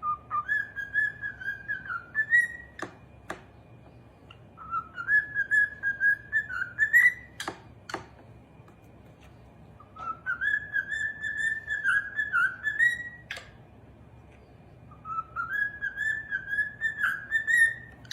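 Parrot whistling the same warbling phrase four times, each phrase rising in pitch at its end, with pauses and a few sharp clicks in between.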